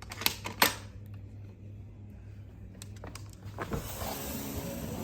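A door latch and handle clicking sharply twice, a few more clicks and a knock as a door is opened, then a rising rush of outside air noise.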